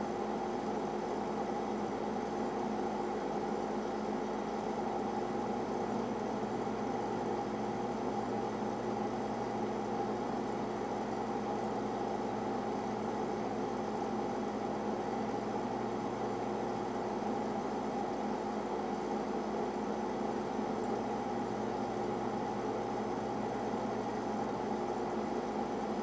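Steady hum and whir of boiler-room machinery around a LYNX boiler: several even tones over a constant rush of noise. A lower hum drops away near the end.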